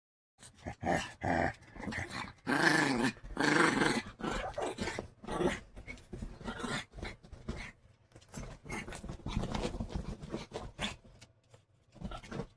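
Chihuahua growling in short, irregular bursts.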